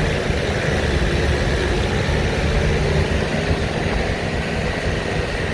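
A vehicle's engine running with a steady low rumble, heard from inside the vehicle.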